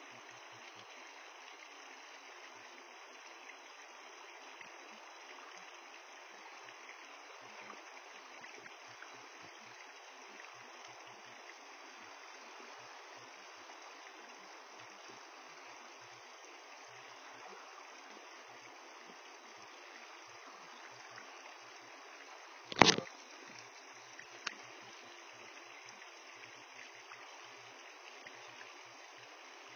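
Steady, faint rush of flowing river water. About three quarters of the way through there is one sharp, loud knock, followed a moment later by a fainter click.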